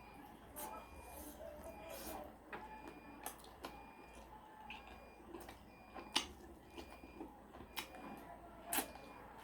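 Eating sounds: a utensil clicking and knocking against a dish again and again, with three sharper knocks in the second half.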